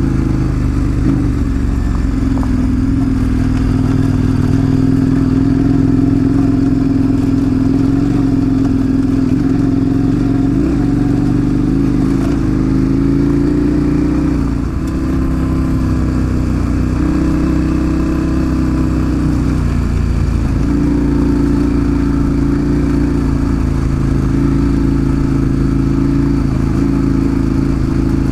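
Large adventure motorcycle's engine running under way, its note mostly steady, easing off and picking up again about fifteen seconds in and once more near twenty seconds.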